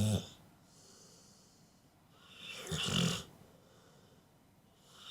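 Pit bull snoring in its sleep, a low rumbling snore on each breath about every two and a half seconds. One snore is trailing off at the start, a full one comes a little past halfway, and the next begins at the very end.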